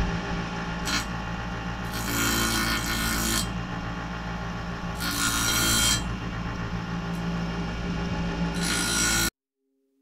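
Bench grinder motor running steadily while the teeth of a band sawmill blade are ground on the wheel, giving four bursts of harsh, hissing grinding, the longest about a second and a half. The sound cuts off suddenly near the end.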